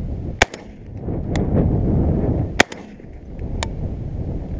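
ASIL A-21 12-gauge semi-automatic shotgun firing: two loud sharp shots about two seconds apart, each followed about a second later by a fainter crack.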